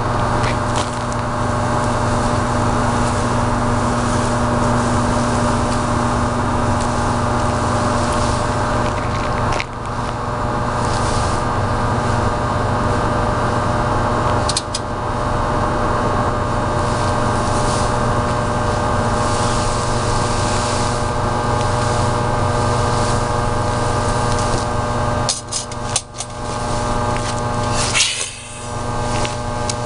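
A loud, steady droning hum made of several held tones. It dips briefly about ten and fifteen seconds in and again near the end, where a short high-pitched sweep rises over it.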